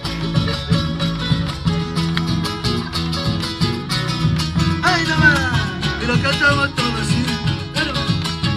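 Live Argentine folk band playing with strummed guitars and a bombo drum keeping a steady beat, with high sliding notes about halfway in.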